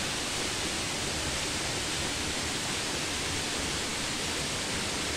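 Steady rush of flowing water from a rocky forest stream, an even hiss with no breaks.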